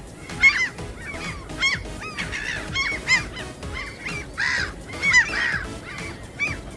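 A flock of gulls calling: many short, overlapping squawks in quick succession, several of them louder and closer.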